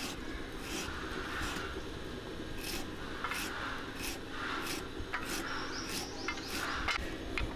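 Raw green mango being cut into small pieces against a fixed upright kitchen blade on a wooden base: a series of crisp slicing strokes, about one or two a second.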